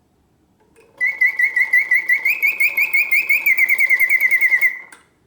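Vintage Karl Griesbaum singing bird cage's bellows-driven mechanical bird whistling after its pause: a fast warbling trill on one high note, rising a little and then falling, starting about a second in and cutting off shortly before the end.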